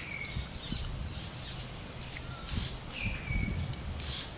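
Wild birds calling: a few short whistled notes that slide slightly down in pitch, and several brief high chirps, over a steady low rumble.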